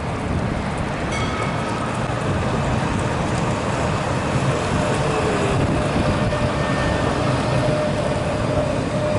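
Saint-Étienne articulated tram approaching and passing close by at low speed: a steady rumble of wheels on the rails with a faint motor whine that strengthens in the second half.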